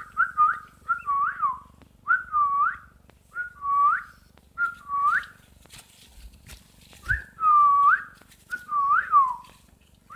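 Yellow-footed green pigeon chick giving a series of whistled calls, each a short level note followed by a dipping, swooping whistle, repeated about once a second with a short pause about two thirds of the way through.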